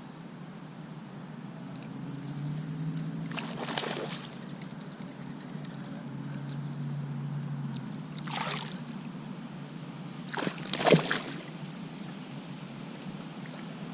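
Water splashing and sloshing at the side of a kayak three times, the last and loudest near the end, over a steady low hum.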